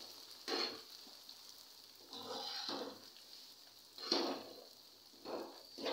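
Spatula stirring ground poppy-seed and nut powder through hot ghee in a kadhai, in four or five separate scraping strokes, with a faint sizzle of the ghee underneath.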